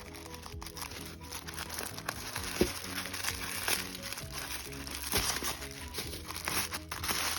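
Background music with packaging being handled and crinkling as a purchase is unwrapped, with a few sharp crackles and taps.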